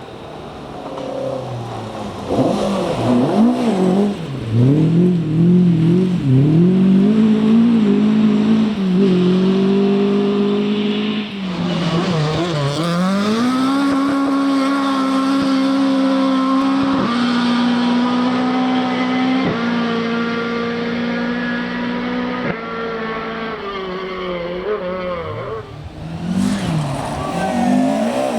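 Rally car engine at full effort on a stage: the revs rise and fall sharply several times, then hold high and steady for several seconds as the car pulls away, with small steps in pitch at the gear changes. The note fades, then an engine revs up again near the end.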